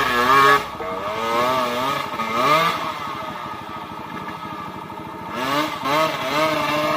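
Trail dirt bike engine revving hard in repeated surges, its pitch rising and falling with the throttle. It is loudest at the very start, with further surges about two and a half seconds in and near the end.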